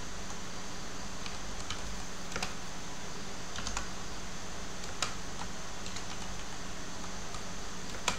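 Computer keyboard being typed on: scattered, irregular key clicks, a shell command being entered, over a steady low hum and hiss.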